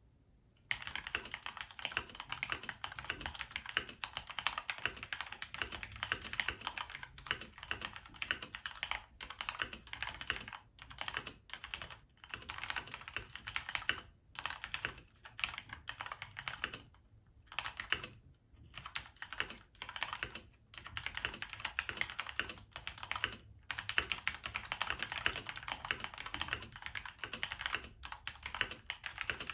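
Typing on a custom XD87 hot-swap TKL mechanical keyboard: a rapid, continuous run of keystrokes, broken by several short pauses.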